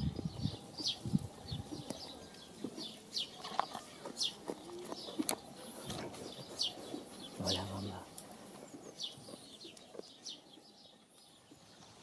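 Sheep grazing close by, with soft low munching and tearing of grass, while small birds chirp over and over in the background. A short low call comes just past the middle.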